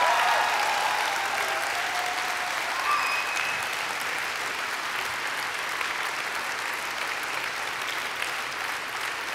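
A large audience applauding steadily, with a few brief cheers in the first three seconds. The applause slowly dies down.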